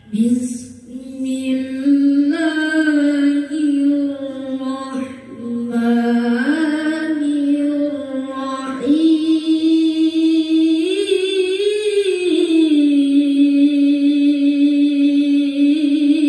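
A boy's voice reciting the Quran in a slow, melodic tilawah style, holding long notes with ornamented pitch turns. Two brief breaks for breath come about 5 and 9 seconds in. The line climbs to its highest notes near the end before settling back.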